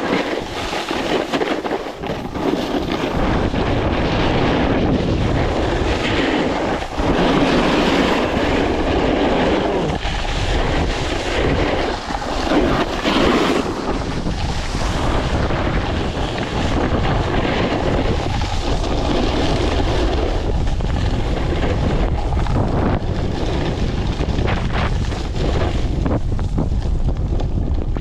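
Gale-force blizzard wind buffeting the microphone: a loud, continuous rushing that swells and dips.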